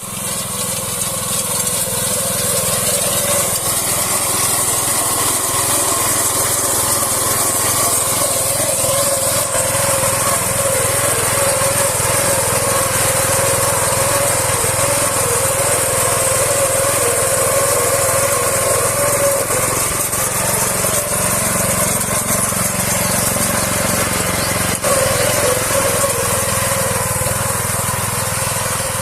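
Mini combine harvester running steadily as it harvests rice, a continuous small-engine drone with a high mechanical hiss.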